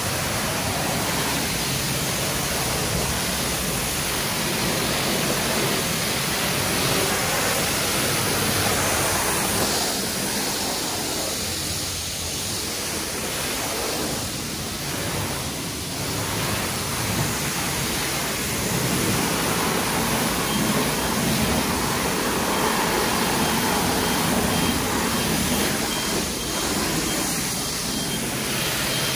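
High-pressure spray wand at a self-serve car wash, hissing steadily as it sprays water over the car's bodywork. The spray eases slightly for a few seconds near the middle.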